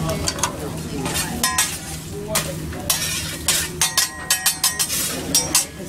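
Metal spatulas scraping and clacking on a teppanyaki flat-top griddle while rice and vegetables sizzle on it. The sharp clinks come quickly and in clusters from about a second and a half in until just before the end.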